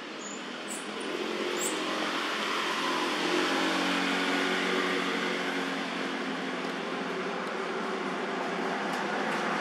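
A steady engine hum, like a motor vehicle running, that grows louder about a second in and then holds. A few short, high chirps come in the first two seconds.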